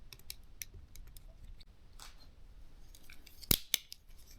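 Light clicks and small scraping ticks of a precision Phillips screwdriver and tiny screws on a small drone's plastic body, as the optical sensor's screws are undone. Two sharper clicks come about three and a half seconds in.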